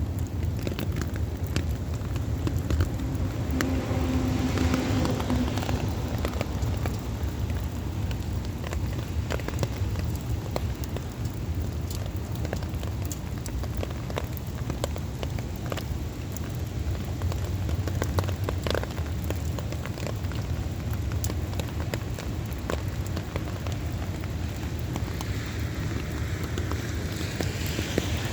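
Heavy rain falling steadily, with many separate drops ticking sharply on a surface over a constant low rumble.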